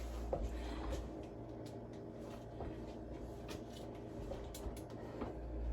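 Faint handling noises of grocery packages being moved: scattered light clicks and rustles over a steady low hum.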